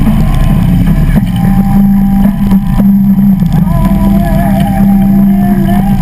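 Harley-Davidson V-twin motorcycle engine running steadily while riding, with a heavy low rumble and wind buffeting the on-bike microphone.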